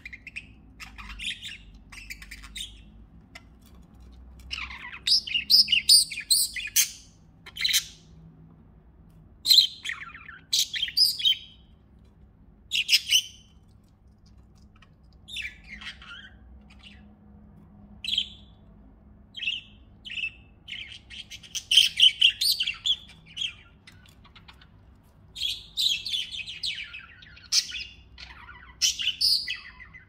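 Pet budgerigars chirping in short, irregular bursts with brief pauses between them.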